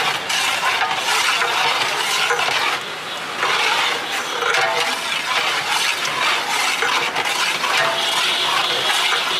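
A long metal ladle stirring dal in a large aluminium cooking pot, clinking against the metal, over a steady hiss.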